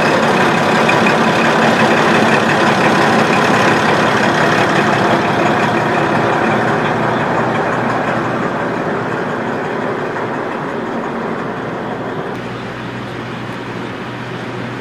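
Original-type diesel engine of a KiHa 40 railcar, heard from inside the car, running steadily and getting gradually quieter. About twelve seconds in the sound settles to a lower, steadier hum.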